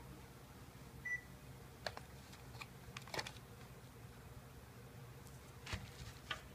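Faint, scattered clicks and taps of a small container being handled and pried at, one that is hard to open. A short high chirp comes about a second in.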